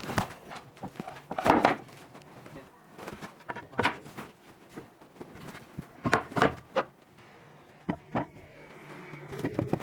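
Irregular knocks and clatters of wooden pieces being handled and set against each other during woodworking, with the loudest knocks about one and a half seconds in and again around six seconds.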